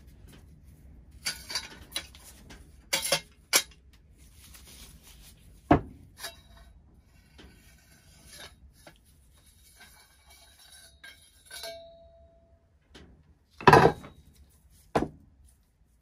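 Metal tubes and parts of a 1940 stirrup pump clinking and knocking against each other and the workbench as the pump is taken apart, with light scraping and rattling between the knocks. The loudest knock comes near the end.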